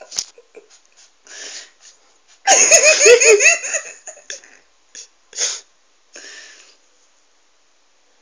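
A person laughing hard: a loud run of quick, repeated 'ha-ha' pulses about two and a half seconds in. Shorter breathy laughs and gasps come before and after it.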